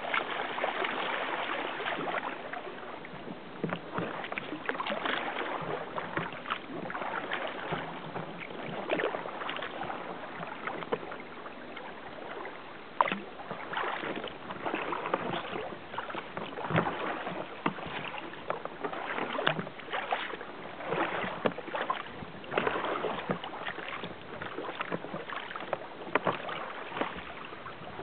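Choppy lake water splashing and slapping against the hull of a moving kayak, in an uneven run of small splashes with a few sharper slaps.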